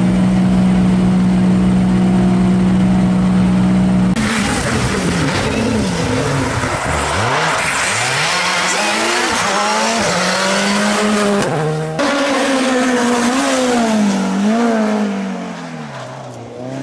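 Rally car engines. First an engine is held at steady high revs for about four seconds. Then a Škoda Fabia R5 rally car accelerates through its gears, its pitch climbing and dropping at each shift. Near the end a Renault Clio rally car's engine revs up and down as it slides round a hairpin.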